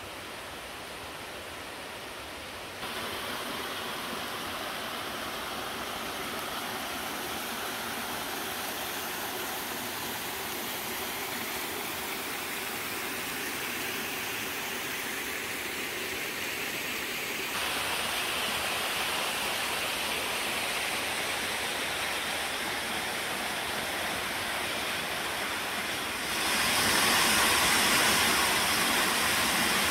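Small mountain stream rushing and splashing over rocks and gravel, a steady water noise. It gets louder in sudden steps, loudest in the last few seconds, where the water tumbles down a small cascade between boulders.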